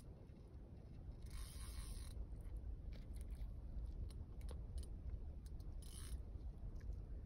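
Fishing reel being cranked, its gears and clicking mechanism turning as line is wound in under load from a hooked fish, over a steady low rumble. Brief higher hissing bursts come about a second in and again near six seconds.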